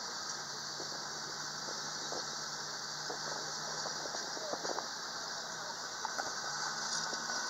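An armoured half-track driving past at low speed: a steady low engine hum that rises in pitch near the end, with scattered light clicks and squeaks from the tracks and running gear, over a constant high-pitched background hiss.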